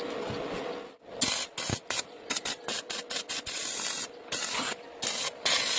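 Stick-welding arc crackling and hissing: steady at first, then breaking off about a second in and sputtering in irregular bursts with short gaps, as the electrode's arc keeps catching and going out.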